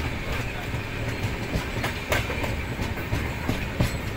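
Passenger train running, heard from on board: a steady low rumble of the wheels on the track, broken by a few irregular sharp clacks as the wheels pass rail joints.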